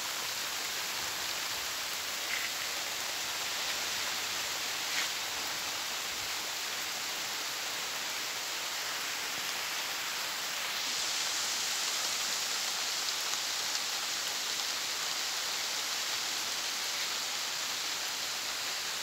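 Steady rain, an even hiss of a downpour that is getting heavier, a little louder from about halfway through.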